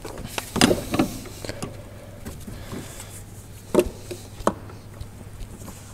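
Hands in work gloves handling the supercharger's metal boost pipe and its silicone hose coupler while pushing it into place: scattered rubbing and a few short knocks, the sharpest about four seconds in, over a steady low hum.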